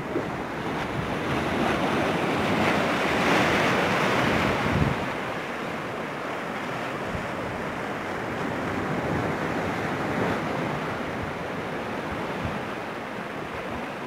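Rough monsoon surf breaking and churning against a rocky shore, with wind buffeting the microphone. One wave surge swells loudest from about two to five seconds in, then the wash settles to a steady rush.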